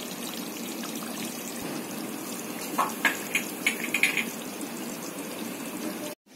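Beef curry simmering in a pot: a steady bubbling hiss from the thick gravy, with a few louder pops about three to four seconds in. The sound cuts off abruptly near the end.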